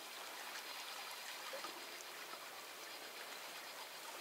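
Faint, steady rush of a small river's current rippling past.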